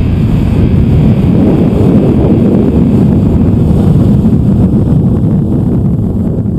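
Heavy wind buffeting on the microphone over the rush of a sportsboat running fast on open water. It is loud and steady, easing off slightly near the end.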